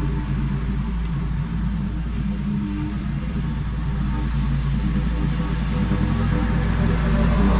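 Engine of a stand-on zero-turn mower running steadily as it cuts grass, a little quieter in the middle and growing louder near the end as the mower comes back.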